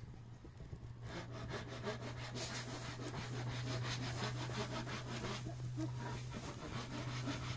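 Rapid, rhythmic rasping strokes, like sawing or scraping, start about a second in and go on steadily over a constant low hum.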